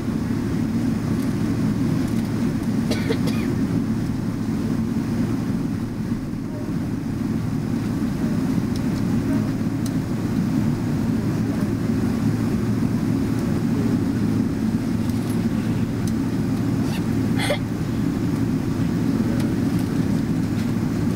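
Steady low rumble of a Boeing 777-300ER's GE90-115B engines and airflow heard inside the passenger cabin while the jet taxis, with a couple of faint brief clicks about three seconds in and again late on.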